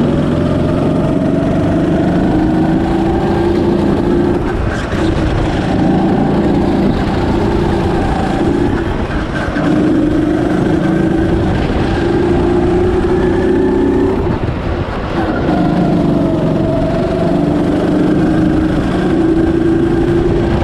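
Go-kart engine of a Birel N35 kart at speed on track, its note climbing slowly under throttle and dropping back several times as the kart slows for corners.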